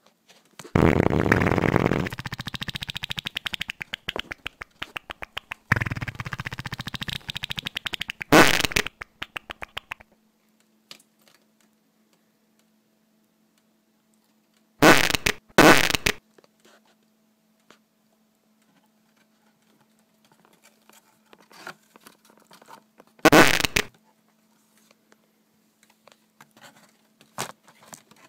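Dubbed comedy fart sound effects. A long, rapidly sputtering fart runs for several seconds near the start, followed later by three short separate fart blasts.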